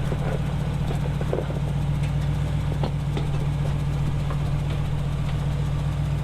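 Off-road 4x4's engine running steadily at low revs, near idle, during a slow rock crawl, with a few faint clicks over the hum.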